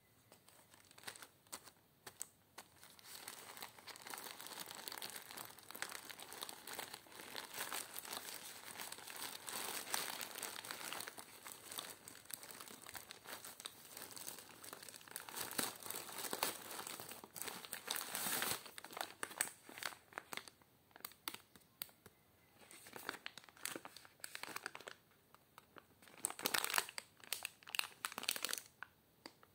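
Thin plastic crinkling and crumpling in uneven bursts as a black plastic mailer bag is torn open by hand and plastic-wrapped packs of wipes are pulled out and handled, with some tearing and short pauses.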